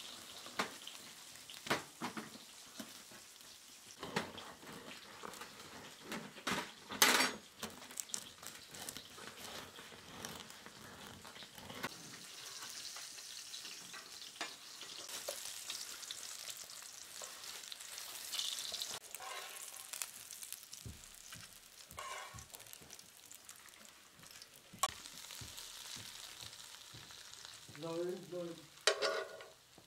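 Wood fire crackling in a wood-burning stove: a steady hiss with scattered pops and snaps, and one sharp crack about seven seconds in.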